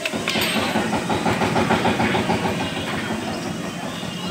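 A motor engine running steadily with a fast, even beat.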